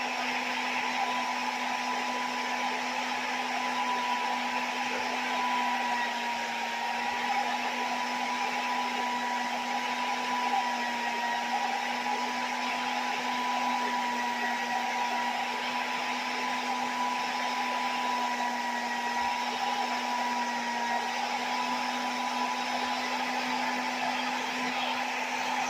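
Hair dryer running steadily: a constant motor whine over rushing air, holding the same pitch throughout.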